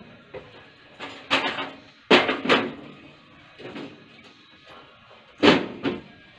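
Sheet-metal breaker panel cover and hinged panel doors being fitted, opened and swung shut: a series of metal clanks and bangs, the loudest about two seconds in and again about five and a half seconds in.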